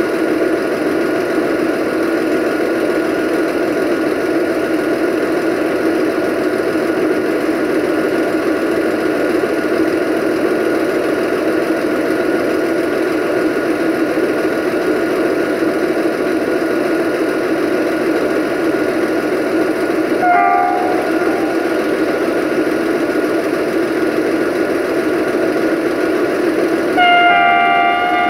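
Diesel train engine running with a steady drone as the train approaches. A brief horn toot comes about twenty seconds in, and a longer, louder multi-tone horn blast comes near the end.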